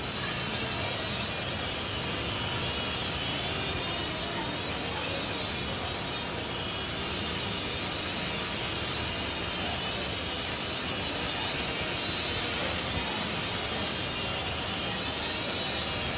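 Small quadcopter drone's motors and propellers whining in flight, a steady high-pitched whine that wavers slightly in pitch as it hovers and drifts.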